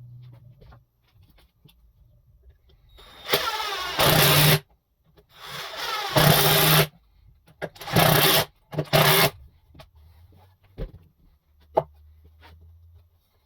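A power tool run in four bursts, each spinning up quickly and cutting off: three of a second or more and a short final one.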